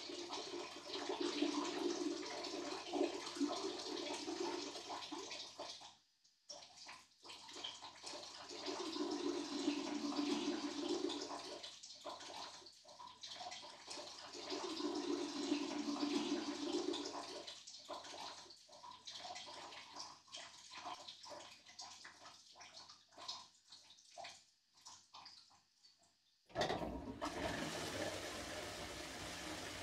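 Water running and splashing, as from a bathroom tap or basin, in three louder spells of about two seconds each with small knocks and taps between them. Near the end it gives way suddenly to a steadier hiss.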